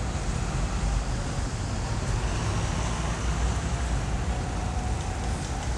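Cars driving past on a busy street: a steady traffic rumble with no single standout event.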